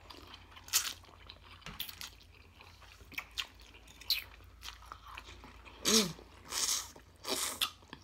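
Two people slurping and chewing instant noodles: scattered short, wet sucking and smacking sounds, with louder, longer slurps about six to seven and a half seconds in.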